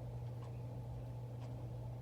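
Casablanca Victorian ceiling fan running on its third speed: a steady low motor hum with a faint tick about once a second.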